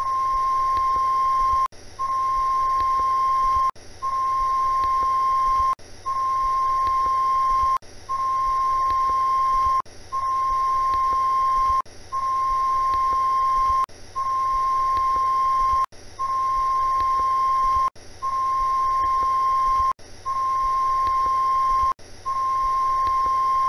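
Television test-card tone: a steady, high-pitched beep broken by a short gap about every two seconds, repeating evenly.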